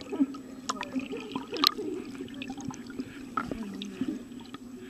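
Water heard underwater in a swimming pool: muffled sloshing and bubbling, with scattered clicks and pops.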